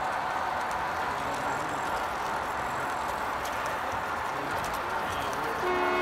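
O-gauge three-rail model passenger train rolling past at close range: a steady running noise from its wheels and motors on the track. Near the end a steady pitched tone with overtones comes in.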